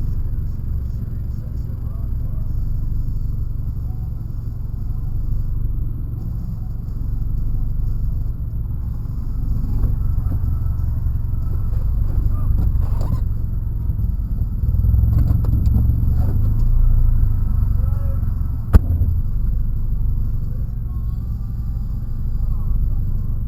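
Vehicle engine running with a steady low rumble that swells somewhat in the middle, and a single sharp knock about nineteen seconds in.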